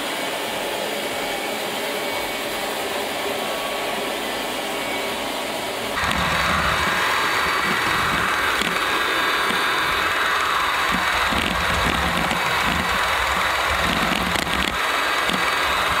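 ILIFE V5 robot vacuum running: a steady whirr of its suction fan and brushes. About six seconds in it turns louder and closer, with a low rumble and irregular knocks as it travels across the floor.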